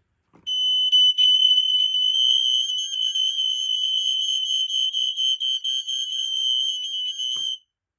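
Smoke alarms on a test board sounding together after the test button on a Kidde i12060A is pressed: a shrill, piercing alarm tone that starts about half a second in and cuts off sharply near the end. The 4.6 units drown out the Code 3 units.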